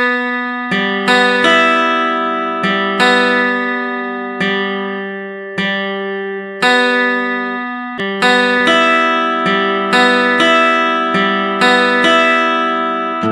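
Background instrumental music: slow plucked-string notes, guitar-like, each struck sharply and ringing on as it fades.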